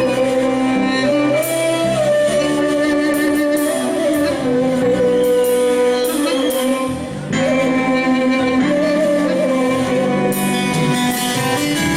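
A woman singing a Turkish folk song (türkü) with instrumental accompaniment of plucked strings, her voice holding long, wavering notes. The music dips briefly about seven seconds in.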